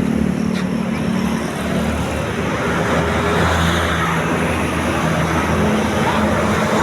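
Tour bus's diesel engine running steadily at low revs.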